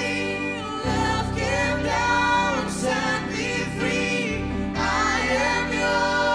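Worship band and singers performing a contemporary worship song, voices holding long notes over a band whose bass note changes about a second in and again around four seconds in.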